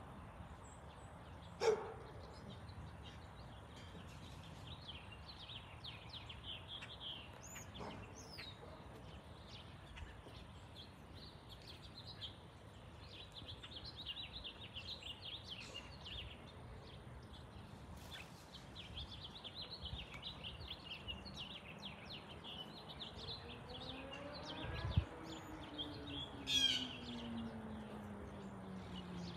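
Small birds chirping busily over a low background haze, with a sharp knock about two seconds in and another near 25 seconds. In the last few seconds an engine sound passes, its pitch falling steadily.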